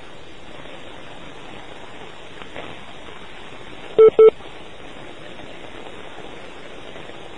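Steady hiss of a telephone line, with a pair of short electronic beeps about four seconds in.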